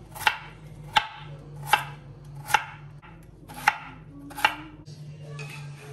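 Kitchen knife chopping vegetables on a cutting board: six slow, even cuts, each landing as a sharp knock about every three-quarters of a second.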